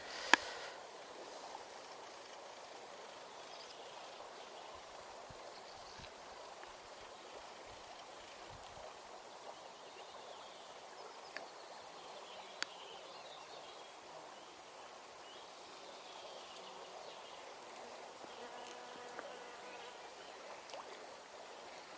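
Quiet steady rush of river water with an insect buzzing close by, and a few light clicks.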